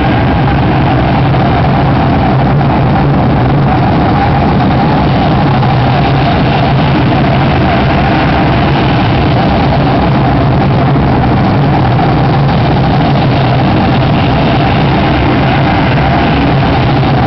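Live harsh noise music: a loud, unbroken wall of dense noise over a steady low drone, with no breaks or changes.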